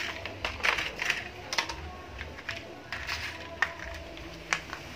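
Plastic toy vehicles clicking and knocking on paving stones as they are handled and set down: a handful of short, irregular clacks.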